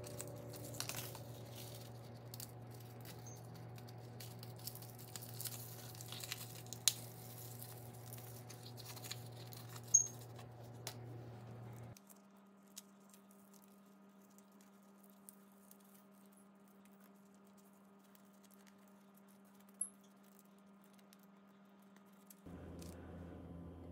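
Faint kitchen handling sounds, scattered light clicks and crackling, over a low steady hum. About halfway through the crackling stops and it goes quieter, leaving mostly the hum, which shifts again near the end.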